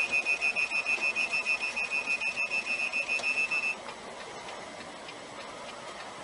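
Rapid electronic warning beeps from inside a semi-truck's cab, one high pitch at about seven beeps a second, cutting off about four seconds in. The beeping is typical of a following-distance or collision warning as the truck closes on a slowing vehicle ahead. After it stops, the steady road and engine noise of the cab remains.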